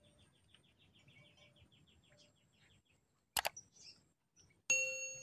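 Subscribe-button overlay sound effects: a sharp mouse click about three seconds in, then a bright bell ding that rings on to the end. Before them, faint rapid chirping, about eight ticks a second, fades out.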